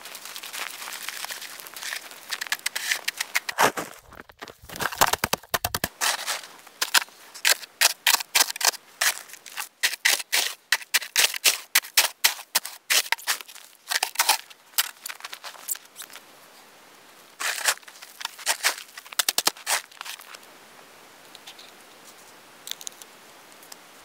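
Snow shovel scraping and crunching into packed snow, a quick run of scoops one after another, stopping about 20 seconds in.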